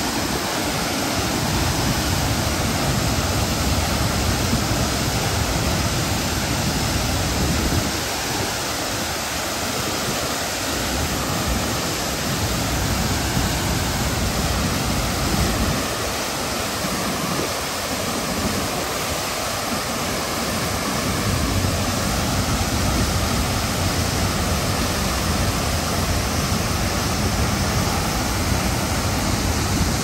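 Ousel Falls, a heavy waterfall, pouring into its plunge pool of churning whitewater: a steady, loud rush of falling water, its low rumble easing briefly twice.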